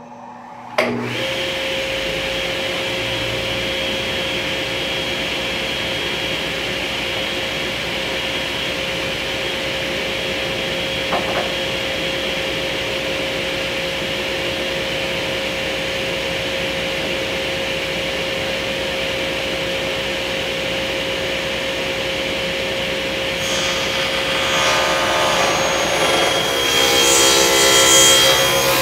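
Table saw switched on about a second in and spinning at no load with a steady hum. From about 24 s a maple panel is ripped along the fence, and the cut makes the noise louder and rougher.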